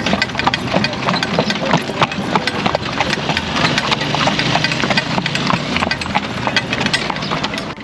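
Hooves of a harnessed horse pulling a carriage, clip-clopping in a quick, steady rhythm on the street.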